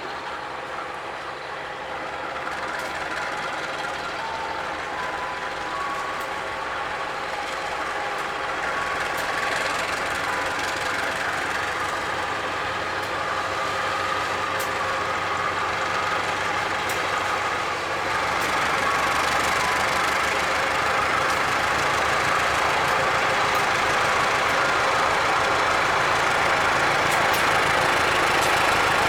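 Diesel locomotive engine running, growing steadily louder as it approaches.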